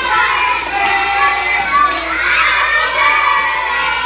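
A group of young children singing together loudly and clapping along, with a teacher clapping too.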